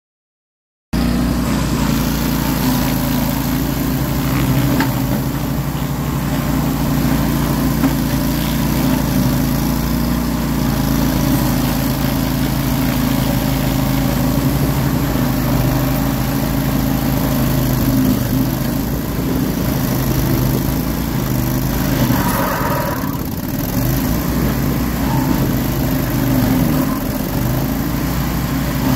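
Tracked stump grinder's gasoline engine running steadily while its cutter wheel grinds through roots and soil; the sound cuts in about a second in.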